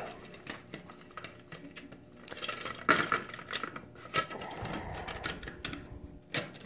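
A plastic toy-train hopper car handled and set onto metal three-rail track: scattered clicks and light clatter of its wheels and trucks against the rails, with a short low rumble a little after the middle.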